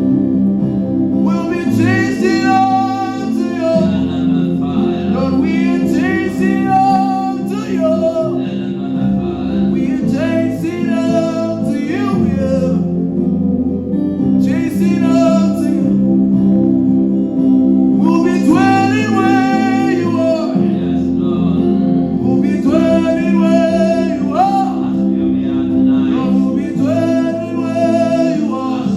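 Gospel worship music: sung phrases that come and go over sustained chords and a bass line that changes every couple of seconds.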